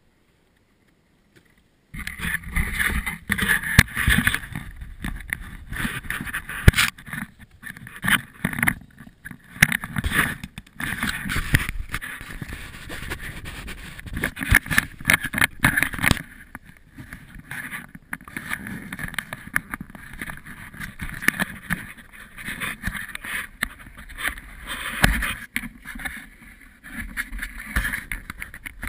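Rustling, scraping and knocking of clothing and snow rubbing against a body-worn action camera as the snowboarder shifts about on the ground. It starts about two seconds in and comes in uneven surges with sharp knocks.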